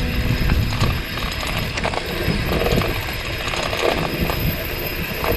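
Bicycle under way: rapid mechanical clicking from the drivetrain over a steady low rumble of the ride.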